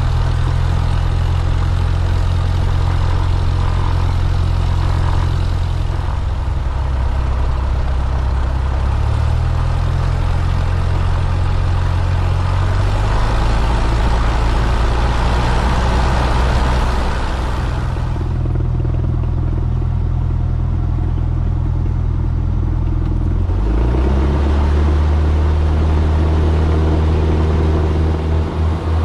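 Single-engine light airplane's piston engine and propeller droning in the cabin, the engine note shifting pitch in steps. About four-fifths of the way through it dips briefly and then comes up to a strong steady drone as power is brought up for the takeoff roll.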